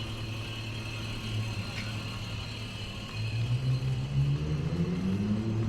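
A motor vehicle's engine running with a steady low hum, then rising in pitch from about three seconds in as it accelerates.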